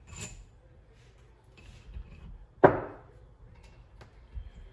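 Workbench knocks from tools and parts being handled and set down: a light knock at the start, a sharp loud one with a short decay about two and a half seconds in, and a softer one near the end, with a few small clicks between.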